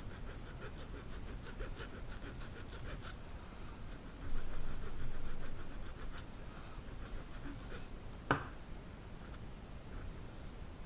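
A small file scraping a lock wafer from a SAAB 9-5 ignition lock cylinder in quick, rapid strokes for about three seconds, easing the wafer so it no longer catches on the key. Then handling noises, and a single sharp click about eight seconds in.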